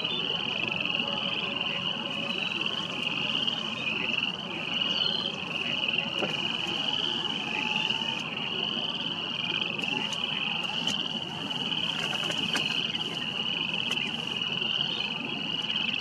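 A dense chorus of frogs calling from a marsh, a steady high trilling that never breaks.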